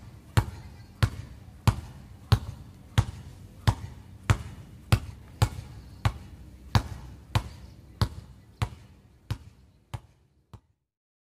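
A basketball being power-dribbled hard on an outdoor court, giving a steady bounce about every two-thirds of a second. The last few bounces fade out near the end.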